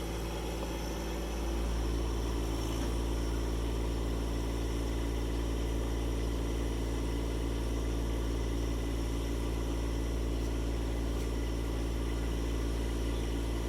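John Deere 1025R subcompact tractor's three-cylinder diesel engine running steadily, a little louder from about a second and a half in.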